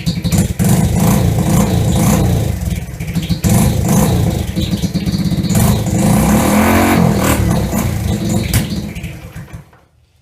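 Kawasaki KLF110 Mojave quad's small single-cylinder engine running and being revved, its pitch dipping and picking up again about seven seconds in, then dying away and stopping near the end.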